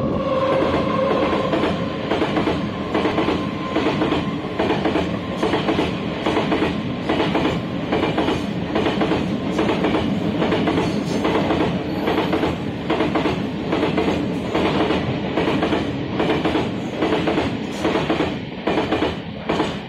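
Freight train of hopper wagons passing close by, its wheels clattering rhythmically over the rail joints, about two clacks a second. A steady tone fades in the first second, and the clatter drops away near the end as the last wagon passes.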